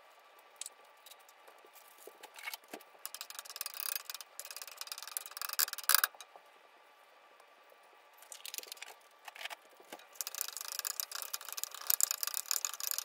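Wooden spatula scraping and pushing scrambling eggs and sausage around a Granitestone nonstick frying pan, in bursts starting about three seconds in, again around eight seconds, and steadily over the last three seconds.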